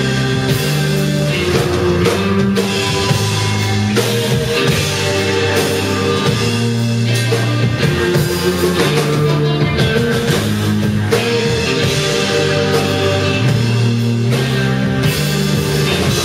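Rock band playing live on drum kit and guitars, with long held low notes shifting every second or two under steady drumming.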